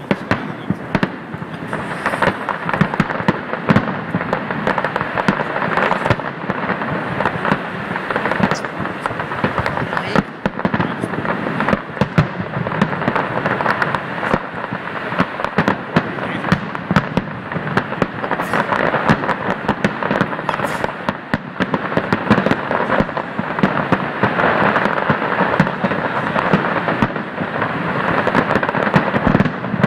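Aerial fireworks display, recorded on a phone: a continuous barrage of shells bursting, with dense crackling and popping and frequent louder bangs, building up near the end.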